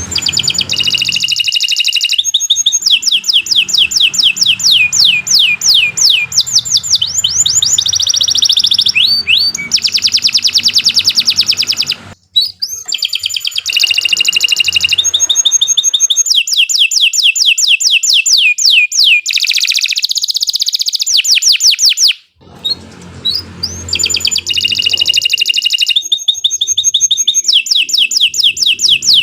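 Domestic canary singing a long, loud song of fast trills and rapidly repeated chirping phrases. The song stops briefly twice, once near the middle and once about three-quarters of the way through.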